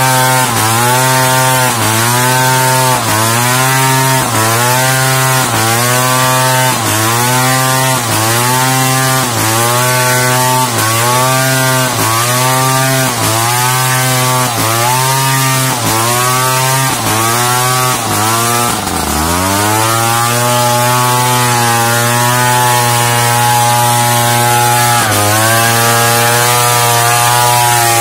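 Large two-stroke chainsaw ripping lengthwise through a squared pelawi timber under load. Its engine pitch sags and recovers about once a second as the cut is worked, bogs deeply once about two-thirds of the way through, then runs steadier.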